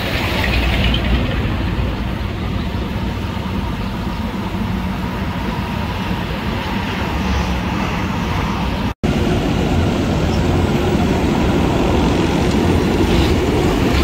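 Vögele Super 2100-2 tracked asphalt paver running while laying asphalt: steady diesel engine and machinery noise. The sound drops out for an instant about nine seconds in, then carries on a little louder.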